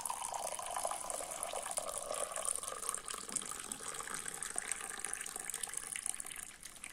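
Hot water poured in a thin stream into a ceramic heat-changing mug, splashing and filling steadily, the pour stopping near the end.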